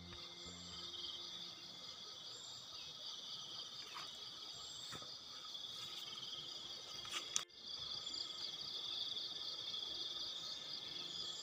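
Steady, pulsing insect chorus in forest at dawn, with a few short, high bird notes now and then. A single sharp click sounds about seven and a half seconds in.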